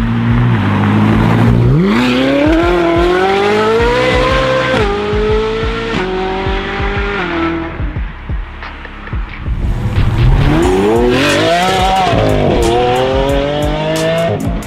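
A modified Japanese performance car accelerating hard, its engine revs rising steeply and dropping sharply at gear changes, twice over, with crackles near the end.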